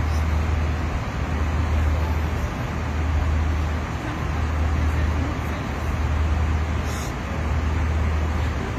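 Airliner cabin noise in flight: a steady rush of engines and airflow over a strong low hum that swells and eases slowly.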